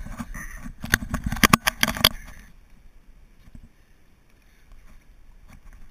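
River water splashing close by as people float and paddle on inflatable mattresses: a quick run of sharp splashes and knocks for about the first two seconds, then only faint lapping and an occasional small splash.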